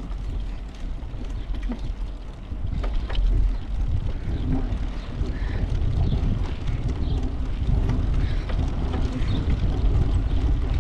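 Wind buffeting the microphone of a camera riding along on a moving bicycle, a low rumbling rush that grows louder about three seconds in.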